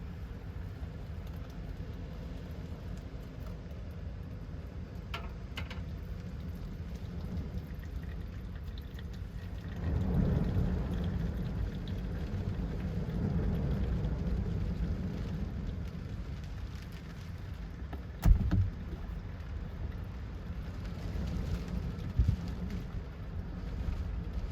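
Strong wind gusts buffeting the truck and its camper shell: a steady low rush that swells about ten seconds in. A sharp thump about three quarters of the way through, and a smaller knock near the end.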